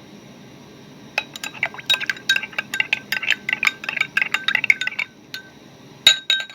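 A metal spoon stirring in a glass of hot drink, clinking rapidly against the sides for about four seconds, then one louder clink near the end.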